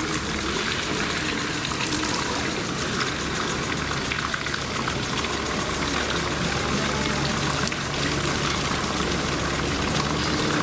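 Steady rush of running water from the polar bear enclosure's pool, with a low mechanical hum under it that grows stronger past the middle.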